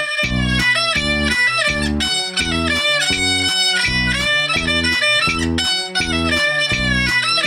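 Instrumental music: a jinghu (Peking opera fiddle) plays a sliding melodic line over a computer-made accompaniment. The accompaniment keeps a steady low beat about twice a second.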